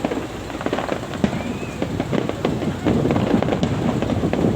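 Fireworks going off: a dense, continuous run of rapid pops and crackling bangs.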